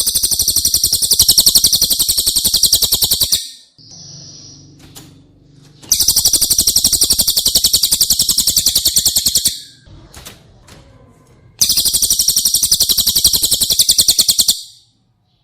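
Bird song from a masteran recording of cililin and tengkek buto: three long, very rapid trilled bursts of about three and a half seconds each, with softer calls in the pauses between them.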